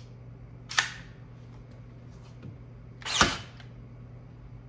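Two sharp mechanical clicks about two and a half seconds apart, the second louder, from a cordless 23-gauge pin nailer being worked while it is loaded with nails and tried.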